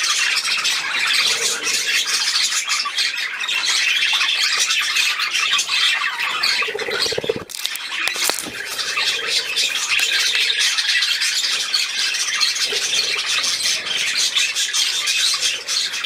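A flock of budgerigars chattering and squawking without pause, a dense mass of high-pitched warbling calls.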